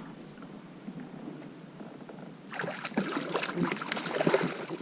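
Quiet for about half the time, then a busy run of knocks, clatter and rustling from the angler handling his catch and gear aboard a fishing kayak.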